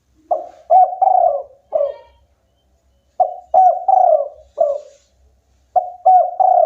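Spotted dove cooing: three repeated phrases of about four short notes each, a couple of seconds apart.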